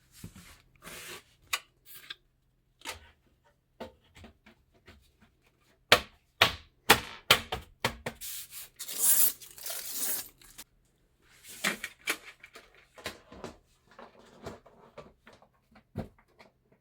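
Hands handling PC components: a string of irregular plastic-and-metal clicks and knocks with rubbing, and a longer tearing, peeling swish about nine seconds in.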